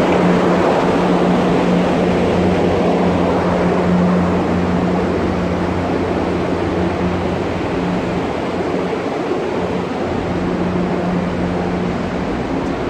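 Ship's machinery running with a steady low hum over a wash of noise, growing slightly quieter around the middle.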